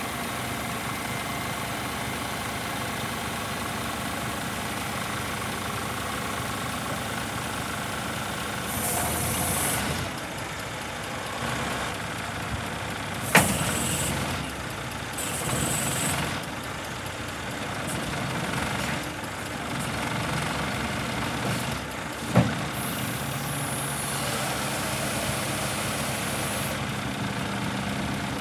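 Scania R490 truck's diesel engine running steadily while the Joab hooklift's hydraulics fold the hook arm down and lift it again, with short hisses at times and two sharp clunks, about 13 and 22 seconds in.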